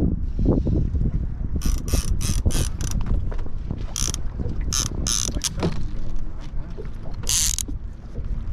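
Fishing reel clicking in short ratcheting runs, several clicks a second, over a steady low rumble of wind and boat.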